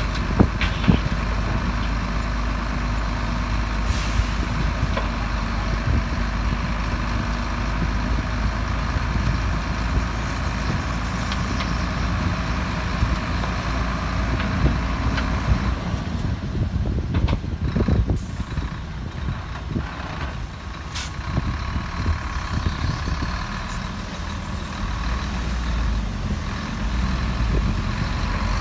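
Heavy diesel earthmoving machinery, a dump truck and a bulldozer, running steadily under load. A few sharp knocks or hisses come between about 16 and 21 seconds in.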